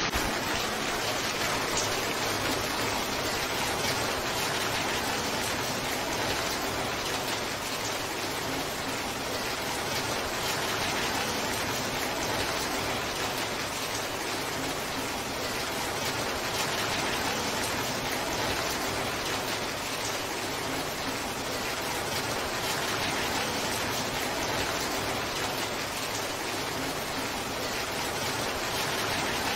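Torrential rain pouring down steadily: an even, unbroken hiss of heavy rainfall.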